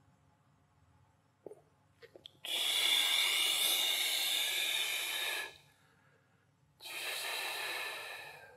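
A man's deep, controlled breaths during a direct-breathing exercise: a few faint clicks, then one long, loud breath of about three seconds, and after a pause a shorter, quieter breath near the end.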